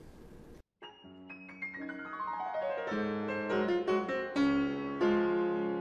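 Short instrumental outro jingle. It starts about a second in with a quick run of struck notes entering one after another, which build into held chords.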